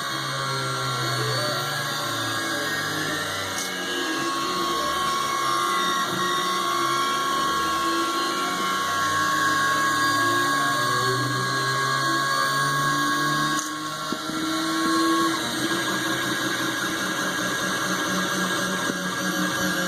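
3D printer running, its stepper motors whirring in several tones that step up and down in pitch as the axes move. The sound changes abruptly about fourteen seconds in.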